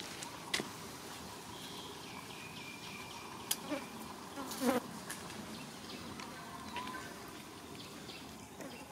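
Insects buzzing and chirping steadily in the background, with a few sharp clicks and one brief louder noise about halfway through.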